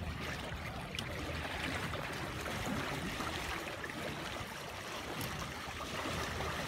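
Steady rush and trickle of water along the hulls of a small sailing catamaran under way.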